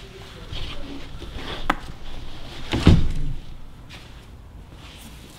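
Handling knocks and clicks: a sharp click a little under two seconds in, a heavier thud about three seconds in, then a few fainter clicks.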